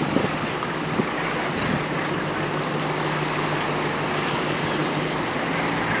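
Boat engine running at a steady low hum under a constant rush of wind and water.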